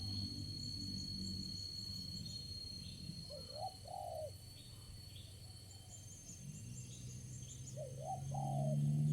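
Spotted doves cooing: two short phrases of two or three notes, about four seconds apart. Under them runs a low steady hum that grows louder near the end, and faint high chirps of small birds.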